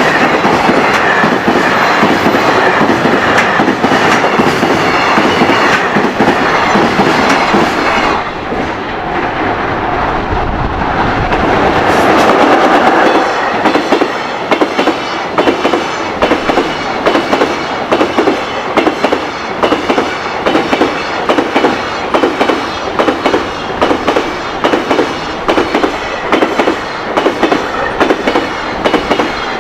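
Freight train passing at speed, its wagon wheels clattering over the rail joints. About halfway through the clatter settles into a steady, regular beat of clacks.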